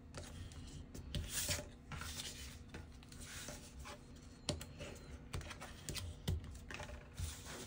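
Kraft cardstock being folded along its score lines and creased with a hand folding tool: paper rustling and scraping, with scattered sharp ticks.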